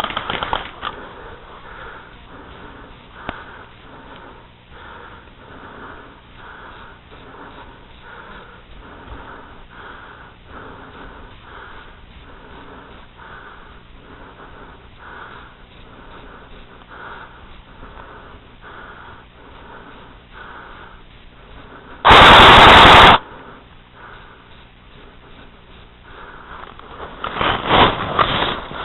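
Steady footsteps crunching through snow at a walking pace, about two steps a second. About 22 seconds in, a very loud burst lasting about a second cuts across them. Near the end, a quick run of louder crunching strokes.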